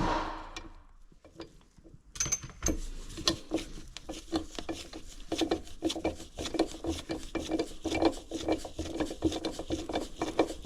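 A sharp knock, then from about two seconds in a steady run of rapid small clicks and scraping from hand work on the engine's metal parts during the teardown.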